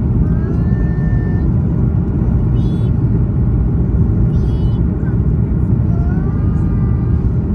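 Steady low rumble of engine and airflow noise inside the cabin of a Boeing 737 MAX 8 airliner, with faint higher sounds like distant voices drifting over it.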